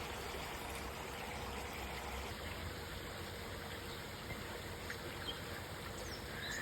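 Creek water running steadily, an even rushing sound, with a faint steady hum underneath.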